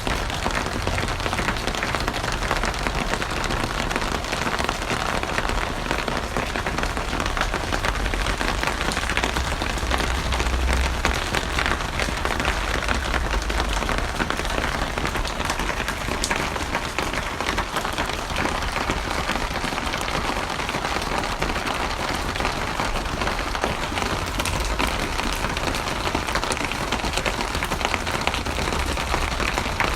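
Steady rain falling on a surface, a dense patter of drops, with a faint low rumble about ten seconds in.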